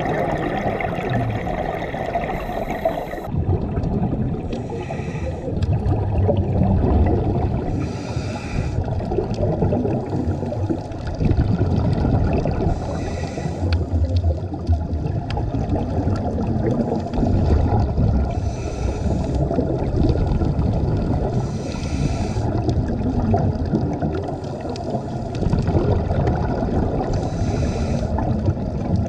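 Scuba diver breathing through a regulator underwater: a steady low rush of water, with a brief bubbling burst of exhaled air roughly every four to five seconds.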